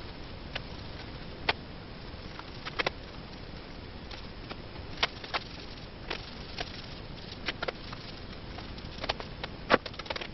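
Light, irregular taps and clicks from brush-painting exterior latex primer onto a wooden table frame, over a steady hiss. The loudest tap comes near the end.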